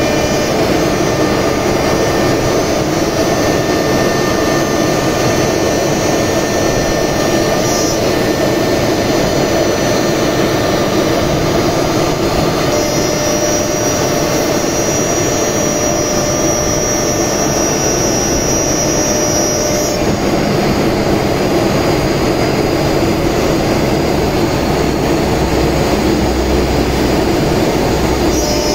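Single-spindle CNC router running and cutting a white-faced panel: a loud, steady machine noise with a thin high whine over it. A brighter high tone comes in about halfway through and drops out several seconds later.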